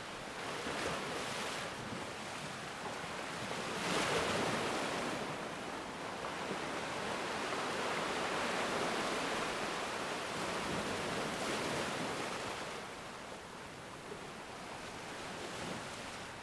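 Ocean waves washing onto a shore in a continuous rush of surf. A wave breaks about four seconds in, a long swell of wash follows, and it eases off near the end.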